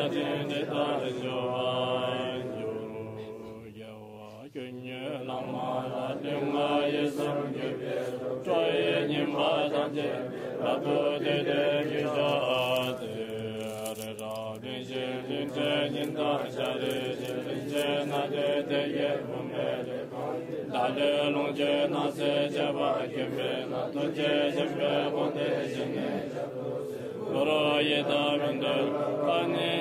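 Tibetan Buddhist mantra chanting: a voice intoning long, held melodic notes that step from pitch to pitch, dipping briefly about four seconds in.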